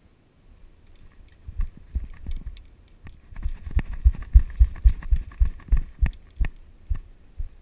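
Quick footsteps, about three a second, thudding on the ground, with rustling and clicking of clothing and gear. They start about a second and a half in.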